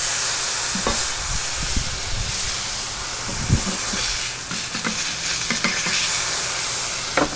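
Thin beef burger patties sizzling on a hot flat-top griddle, just flipped. A metal spatula scrapes and knocks against the griddle surface as it slides under the patties, with one heavier knock about halfway through.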